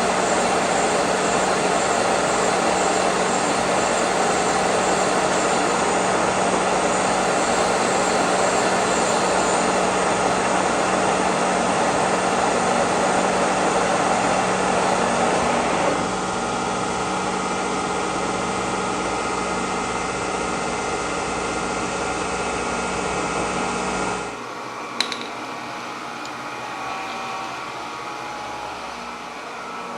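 Old Kearney & Trecker horizontal milling machine running a 3-inch boring head on its horizontal spindle, boring a counterbore. The steady running noise steps down about two-thirds through, then drops away sharply near the end, followed by a single click.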